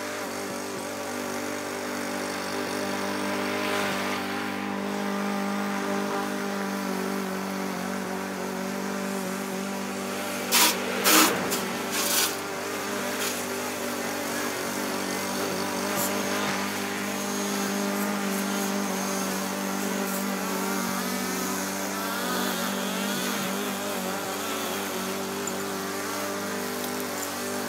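Small gas engine of a walk-behind push lawn mower running steadily while cutting grass. A few sharp, loud clatters come close together between ten and twelve seconds in.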